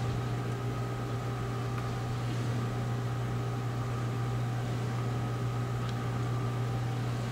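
Steady low hum with a faint even hiss: room tone, with no other sound standing out.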